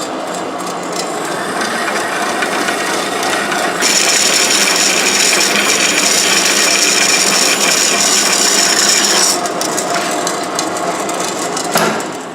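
A metalworking machine in a machine shop cutting or grinding metal: a continuous rough scraping noise that grows louder and shriller for about five seconds in the middle, then eases back.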